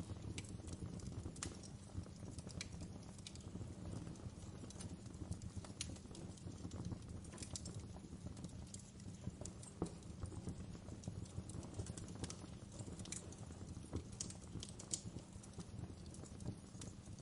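Wood fire burning in a fireplace: irregular sharp crackles and pops, a few of them louder, over a steady low rumble of the flames.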